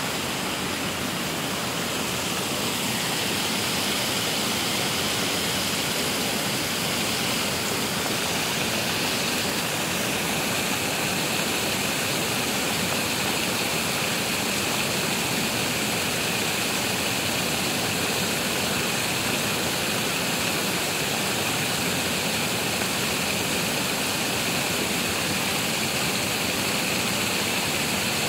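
Water rushing steadily over a weir, a constant even roar of falling water.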